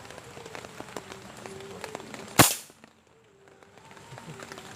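A single air rifle shot, one sharp crack about two and a half seconds in.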